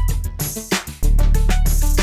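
Music track made in GarageBand, with drums and a heavy bass line. The beat drops out briefly and comes back in full about halfway through.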